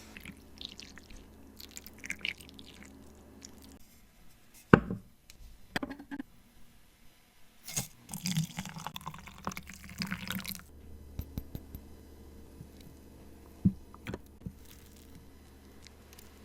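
Chimarrão being handled in its gourd: small liquid and dripping sounds with scattered clicks, a sharp knock about five seconds in, the loudest sound, and a dense stretch of liquid noise lasting about three seconds near the middle.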